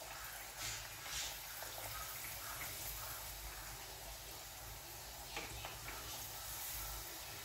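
Spinach puris deep-frying in hot oil in a kadai: a steady, soft sizzle, with a few light taps of the wooden spatula against the pan.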